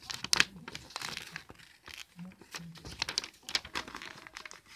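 Paper crinkling and rustling in quick, irregular crackles as it is handled and folded.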